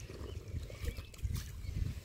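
Lake water sloshing and swirling at the bank as a grass carp is let out of a wet sling and swims off, with a few faint bird chirps.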